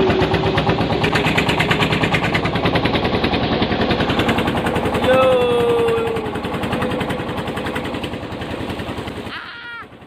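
A boat engine running steadily with a rapid, even knocking beat. A person's voice calls out briefly about halfway through, and the engine sound cuts off suddenly just before the end.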